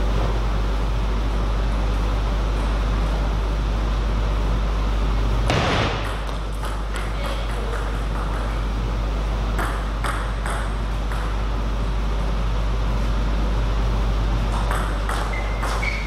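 Table tennis ball clicking off paddles and the table in short runs of sharp taps, over a steady low hum. There is one louder thump about five and a half seconds in.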